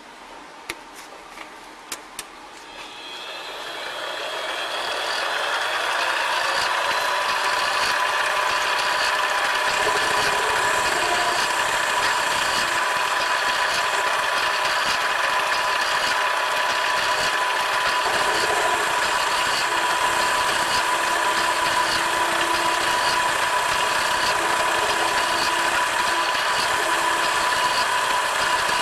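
Benchtop metal lathe: a few clicks, then the motor speeds up over about three seconds and runs steadily with a high whine. Its cutting tool is turning down a metal shaft to a smaller diameter.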